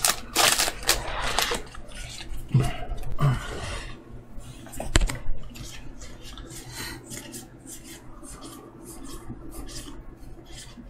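Magic: The Gathering Kaldheim cards and booster packs being handled: a rapid, irregular run of rustling, flicking and clicking as cards and pack wrappers are worked through. It is busiest in the first few seconds, with one sharper click about five seconds in and lighter scattered clicks after.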